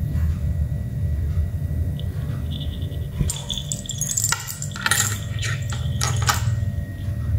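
Metal cabinet door handles rattling and clinking in a quick run of taps, from about three seconds in for some three seconds, as a kitten paws and tugs a toy string hung from them. A steady low hum runs underneath.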